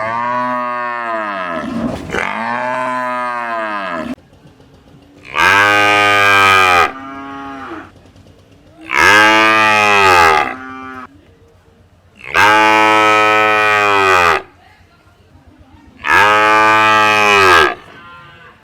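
Cattle mooing: a run of six long moos, each rising and then falling in pitch. The first two are softer and back to back, and the four that follow are loud and come about every three and a half seconds.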